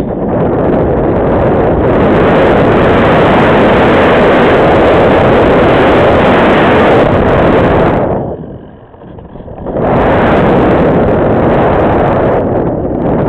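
Loud wind rush and buffeting on the onboard camera's microphone as air streams over the Radian Pro glider's nose in flight. It drops away briefly about two-thirds of the way through, then comes back.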